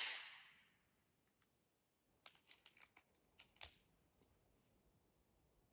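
The tail of a pellet rifle shot dies away, then near silence. A couple of seconds in comes a short run of light clicks ending in a sharper clack, the sound of the air rifle being handled between shots.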